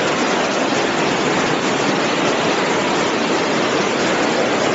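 Loud, steady rushing of water in a flood-stage rainstorm, an unbroken wash of noise with no distinct events.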